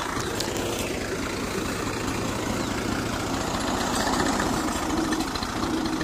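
Farm tractor's diesel engine running steadily as it pulls a tine cultivator through a cotton field, a little louder from about four seconds in.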